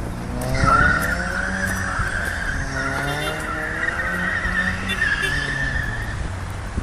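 Car tyres squealing in a long wavering screech as a car drifts in circles on pavement, starting about half a second in and dying away near the end, with the engine revving up and down underneath.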